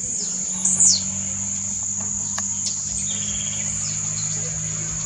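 Blue-black grassquit (tiziu) giving its display call, a short sharp note sweeping downward in pitch about a second in, with a few fainter similar notes later. Behind it runs a steady high-pitched insect drone.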